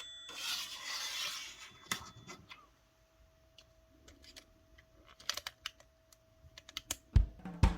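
Small handling sounds from a cassette Walkman being worked on: scattered light clicks, with a brief scrape in the first two seconds and a faint steady tone through the middle.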